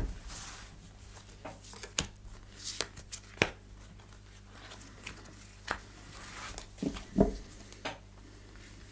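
Oracle cards being spread in a fan across a cloth-covered table, then drawn and laid down one at a time: soft slides and light taps at irregular intervals, with a couple of heavier taps about seven seconds in.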